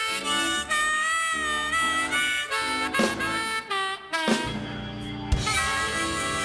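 Blues harmonica played into a vocal microphone cupped in both hands, with held notes that bend and waver in pitch, over the band's backing.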